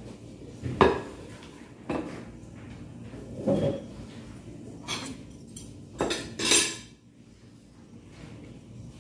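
Kitchenware being handled on a table: a stainless steel bowl, plate and utensils knocked and set down. There are about six sharp clinks and knocks, the loudest about a second in and a longer clatter around six seconds in.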